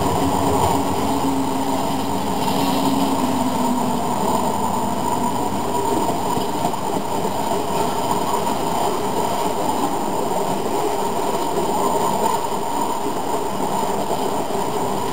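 HO-scale model coal train rolling past: a steady rumble and clatter of the hopper cars' wheels on the track. A steady low tone from the sound-equipped diesel locomotive model fades out about four seconds in as it moves away.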